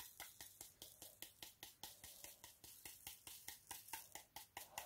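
Round rhinestones rattling in a plastic diamond-painting sorting tray as it is shaken back and forth, faint even clicks about five times a second, the stones settling into the tray's grooves.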